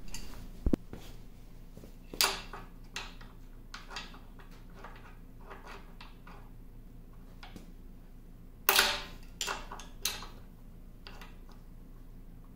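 Pliers clicking and clanking against the steel end bracket of a lathe's leadscrew and feed rod as the feed screws are worked loose: a series of separate sharp metallic clicks and knocks, the loudest cluster about nine seconds in, with a low thump near the start.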